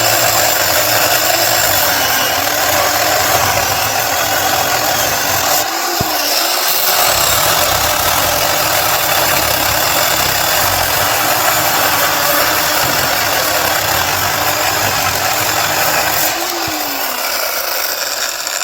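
Portland 14-inch electric chainsaw running steadily while it cuts through a log about 4 inches thick, with a brief dip around six seconds in. Near the end the pitch rises and falls once, then the saw stops.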